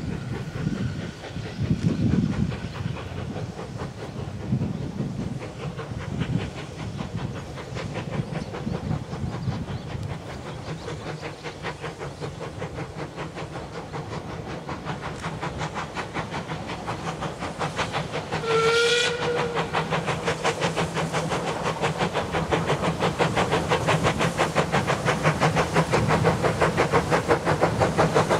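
Small saddle-tank steam locomotive working hard toward the listener, its chimney exhaust beating in a steady rhythm that grows louder as it nears. One short whistle blast sounds about two-thirds of the way through.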